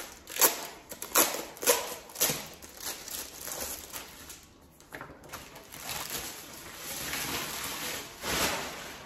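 Paper and a clear plastic binder sleeve crinkling and rustling as a paper label is worked into a binder's spine. There is a quick run of sharp crinkles over the first couple of seconds, then softer rustling and a longer crinkling swell near the end.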